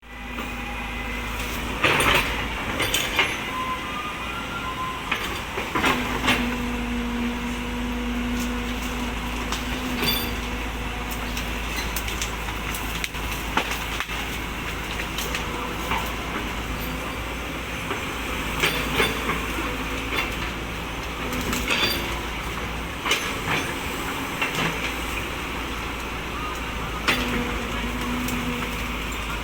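Excavator's diesel engine and hydraulics running steadily, a low hum swelling at times under load, with sharp knocks and cracks every few seconds as tree branches are pushed over.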